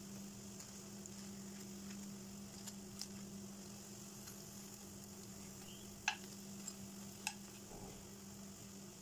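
Spring rolls sizzling steadily in shallow oil in a nonstick frying pan. Metal tongs click sharply against the pan a few times as the rolls are turned, loudest about six and seven seconds in. A steady low hum runs underneath.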